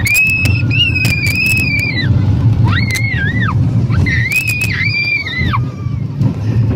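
Roller coaster riders screaming: three long, very high-pitched screams, each dropping in pitch as it ends, over the steady low rumble of the moving coaster and the wind.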